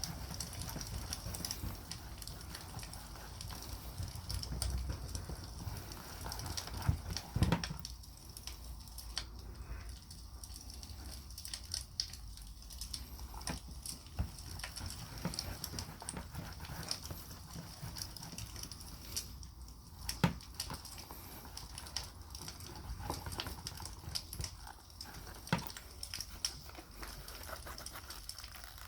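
Wood campfire crackling with irregular small pops and snaps, over a low rumble during the first several seconds. A few louder knocks stand out, the sharpest about seven seconds in and another about twenty seconds in.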